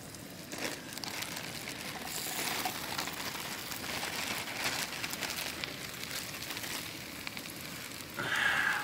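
Butter and oil sizzling in a frying pan on a gas camp stove while a plastic zip-top bag of sliced mushrooms is tipped in, the bag crinkling and the mushrooms pattering into the pan. A brief louder rush comes near the end.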